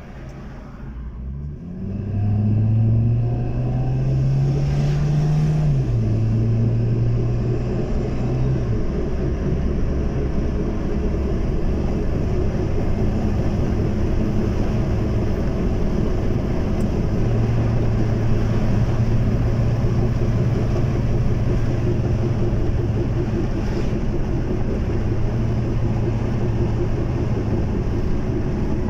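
Daihatsu Terios 1.3 automatic heard from inside the cabin, accelerating hard: the engine note rises, drops at an upshift about six seconds in, rises again and drops at a second shift near nine seconds, then settles into a steady drone with road rumble at cruising speed. Through the steady part runs a growling hum, the 'hırhırhır' sound that the owner puts down to a broken rear wheel bearing.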